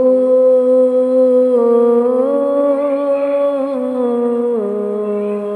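A singer humming a long wordless melody in a sung Sufi kalam. The held note steps up in pitch about one and a half seconds in and again after two seconds, then steps back down near four and four and a half seconds.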